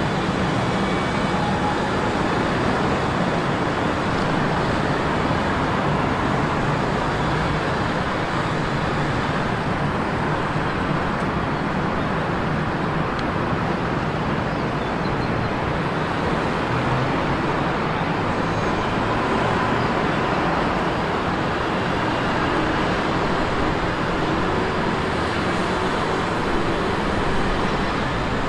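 Steady road traffic noise, an even rumble with no single vehicle or train standing out.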